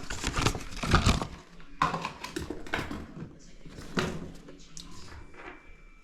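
Irregular clinks, knocks and scraping as tools and small metal parts are handled while working on a furnace's pilot assembly, with the sharpest knocks about one, two and four seconds in.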